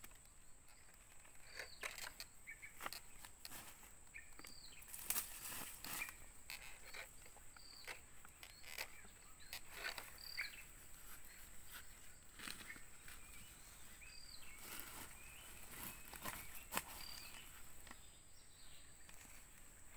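Quiet outdoor ambience: a steady high insect drone with a short high chirp repeating every second or two, and scattered soft rustles and clicks, the loudest about five seconds in and again about three seconds before the end.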